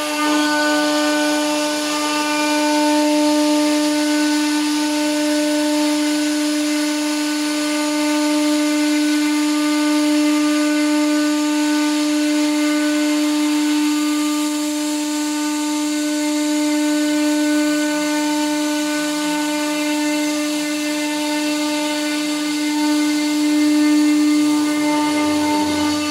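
CNC router spindle on a wood cutting machine running with a steady high-pitched whine while its router bit cuts through a thick solid wood board, with the hiss of wood chips being cut underneath.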